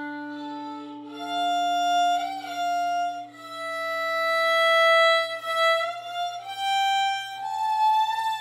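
Slow instrumental music: a melody of long held notes that slide from one pitch to the next, over a sustained low drone that drops out about two-thirds of the way through.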